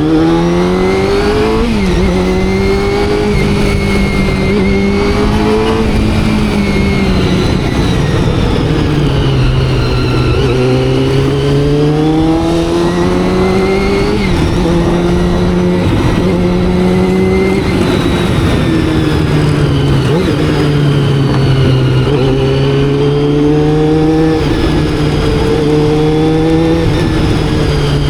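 Honda CBR400RR's carbureted inline-four engine pulling through the gears. Its pitch climbs, drops sharply at each upshift, holds, then sinks as the throttle eases, and the cycle repeats several times.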